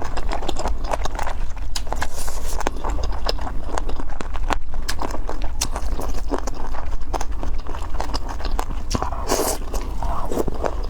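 A person chewing and biting food close to the microphone: a dense run of small wet clicks and crackles, over a steady low hum.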